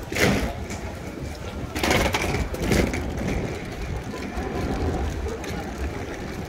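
Open station concourse ambience: a steady low rumble of city noise, with louder noisy stretches at the very start and from about two to three seconds in.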